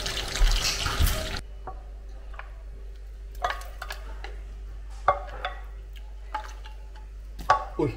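A loud rushing noise cuts off abruptly just over a second in. Then a wooden spatula scrapes and taps against a pot and bowl while saucy braised pork is spooned across, giving scattered soft knocks and wet plops.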